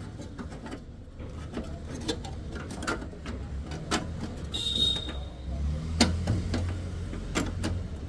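Light clicks and taps of wires and a small metal strip being handled against a microwave oven's magnetron and sheet-metal chassis, with a sharper knock about six seconds in, over a steady low hum.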